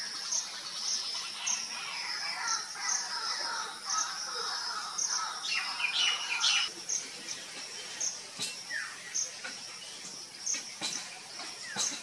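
Forest birds calling over a steady high drone of insects that pulses about twice a second. A run of chirps in the first few seconds gives way to a louder burst of sharp calls about six seconds in, then a few short, falling notes.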